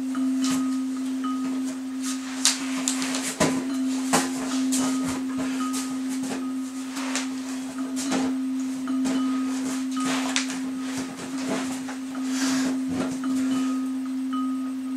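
A steady low droning tone with faint, short, chime-like higher tones. Under it are rustling and soft knocks as a Swiss ball is handled on an exercise mat, plus a few breaths. The sharpest knocks come about three and four seconds in.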